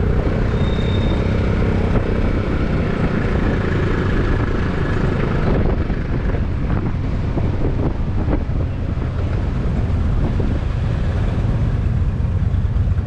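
Vespa scooter running steadily on a ride through city traffic, with cars and motorbikes close around it. A few short knocks come about halfway through.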